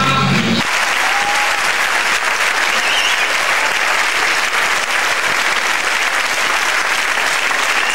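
Dance music stops about half a second in, and an audience applauds steadily and loudly for the rest.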